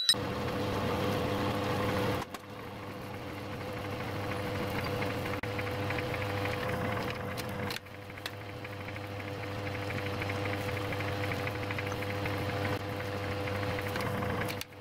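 Metal lathe running, turning a steel thumb-screw blank in the chuck with a knurling tool on the work. It makes a steady machine hum with a constant whine above it. The sound breaks off briefly twice and builds back up.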